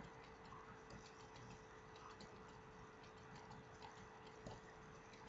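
Near silence: faint room tone with a steady faint hum and light, scattered ticks.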